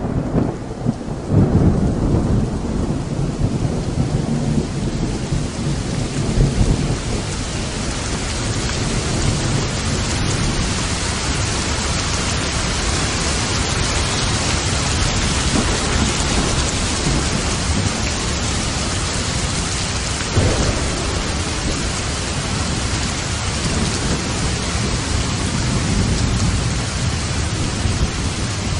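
Rainstorm: steady heavy rain with thunder rumbling low through the first several seconds, and another short rumble about twenty seconds in.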